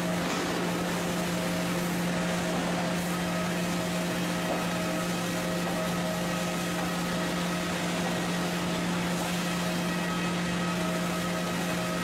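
Sawmill machinery running with a steady low hum and a few fainter steady tones over a mechanical noise, from a lumber stacking line laying sawn boards onto a stack.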